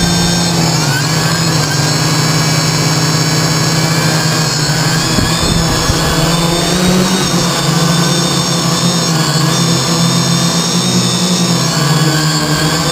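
Brushless motors and propellers of a Y6 multirotor (six rotors on three arms), heard from the camera hard-mounted on its frame: a loud steady whine whose pitch wavers up and down as the throttle changes while it hovers and climbs.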